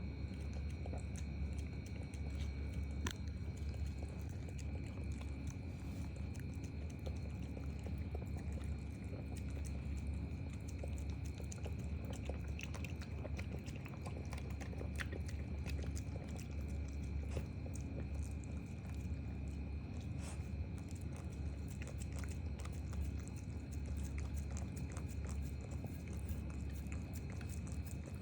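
Pomeranian dogs eating, with many small irregular crunches and clicks of chewing over a steady low hum.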